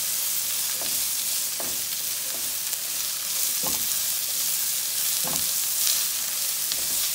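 Sliced onions sizzling in oil in a frying pan as they are stirred, the steady sizzle broken by a few faint strokes of the stirring utensil against the pan.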